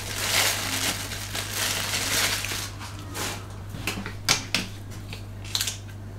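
A thin plastic bag crinkling and crackling as it is squeezed out over a bowl, then scattered clicks and crackles from a plastic water bottle being handled and opened.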